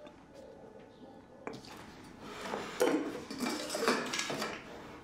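Clatter of dishes and cutlery on a table, starting about a second and a half in and loudest around the third and fourth seconds, with several sharp clinks.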